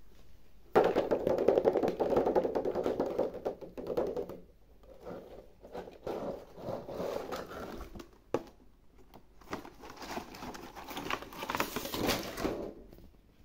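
Plastic blister packaging of a toy figure set crackling and crinkling as hands handle it, in two longer bursts with quieter stretches and a sharp click between them.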